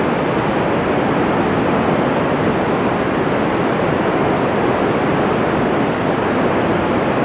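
Steady rushing static hiss from a 2-metre FM amateur radio receiver with the squelch open between transmissions.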